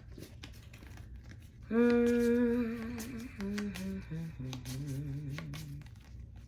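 A person humming a short wordless tune: a long held note, then several shorter notes stepping down in pitch. Small clicks and crinkles of packaging being handled run underneath.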